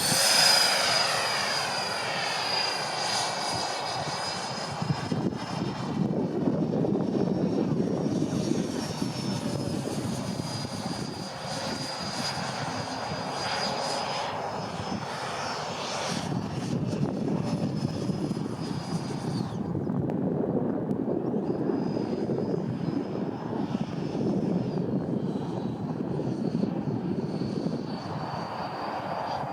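Twin 80mm electric ducted fans of a Freewing MiG-29 model jet, a high steady whine over a rushing of air. It is loudest and sweeping in pitch in the first second as the jet passes close. The whine fades out for a couple of seconds about two-thirds of the way through, then returns.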